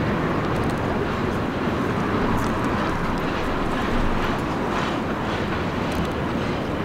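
New York City Subway R62A train approaching slowly on curved track: a steady rumble of wheels on rail, with a few faint clicks.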